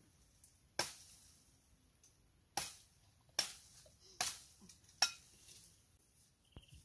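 Five sharp chopping strikes of a blade cutting into branches in brush, unevenly spaced.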